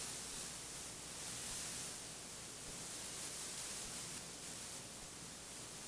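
Steady hiss of room tone and recording noise, with no speech.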